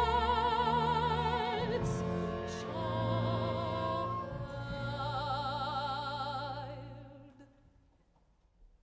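Contemporary chamber music: a soprano singing with wide vibrato over sustained low notes from a small ensemble of strings and winds, with two sharp clicks about two seconds in. The music fades away about seven seconds in.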